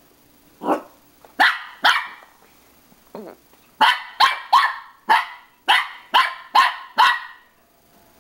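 Small dog barking sharply at its own reflection in a mirror: three barks, a short pause, then a quick run of about eight barks.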